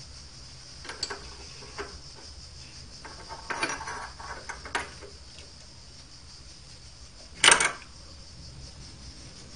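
Light clicks and knocks of metal parts being handled on an Optimum D180 x 300 bench lathe's headstock. A sharp metallic clink, the loudest sound, comes about three-quarters of the way through.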